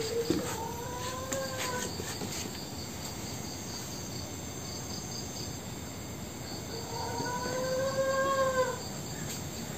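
A woman's long, drawn-out wailing cry, heard twice: once at the start and again about seven seconds in, each lasting around two seconds and wavering in pitch. Crickets chirp steadily throughout.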